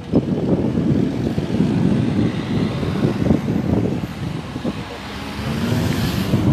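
Cars driving past one after another close by, engines running and tyres on the road, with one car passing loudest near the end.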